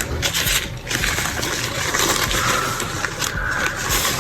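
Packaging being handled and unwrapped: steady rustling with irregular crinkles and small clicks.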